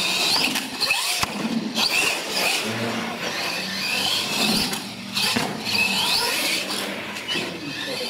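Radio-controlled monster truck's electric motor and gears whining, rising in pitch with each burst of throttle, about five times over.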